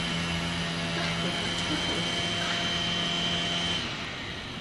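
A motor running with a steady hum, holding one low tone and a high whine, until it cuts off suddenly near the end.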